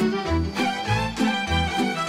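Instrumental background music with a steady bass beat, about three pulses a second.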